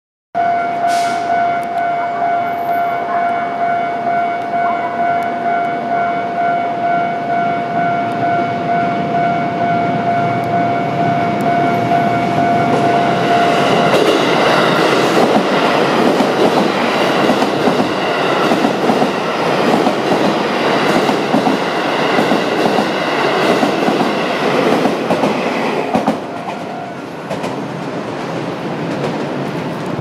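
Level-crossing alarm ringing with a steady, evenly repeating tone as a JR West 281 series Haruka express train approaches. About 14 s in the train reaches the crossing, and its running noise, with wheels clicking over rail joints, takes over with the bell still under it. The passing noise drops away about 26 s in.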